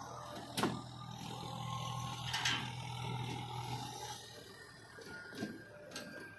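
A motor or engine hums steadily and stops about four seconds in, with a few sharp knocks and clicks over it.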